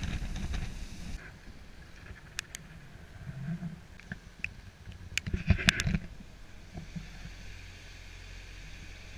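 A sailing yacht's hull rushing through breaking waves, with wind on the microphone, for about the first second. It then drops to quieter water sounds with a few sharp clicks and knocks, and a steady low hum over the last few seconds.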